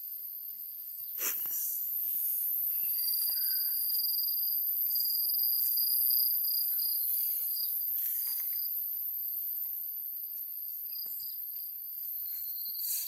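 Steady high-pitched insect chorus, with footsteps and tall grass brushing against legs as people walk through it, a louder swish about a second in.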